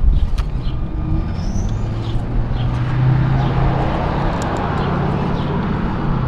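Small electric motor and drivetrain of a 1/24-scale SCX24 RC rock crawler running as it crawls over rocks, a steady whirring hum that grows a little stronger midway.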